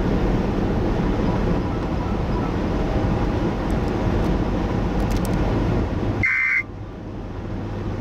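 Steady road and engine noise of a car driving, heard from inside. About six seconds in there is a short electronic beep, and the noise then drops to a lower level.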